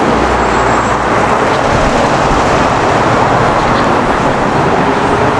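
Steady city street ambience dominated by road traffic noise, an even hiss and rumble without distinct events.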